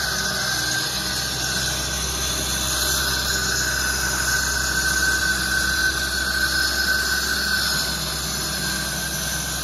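Takeuchi TB257FR compact excavator's diesel engine running under load while it digs, with a steady high whine from its hydraulics that swells slightly midway.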